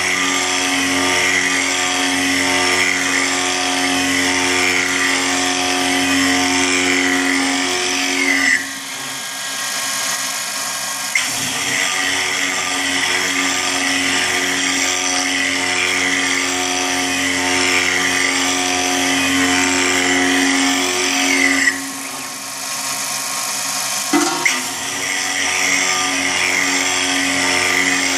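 CNC milling machine spindle whining steadily while an end mill cuts a circular pocket in a metal plate, the cutting noise wavering in a regular cycle as the tool goes round. The cutting drops out twice for a couple of seconds and resumes with a short click.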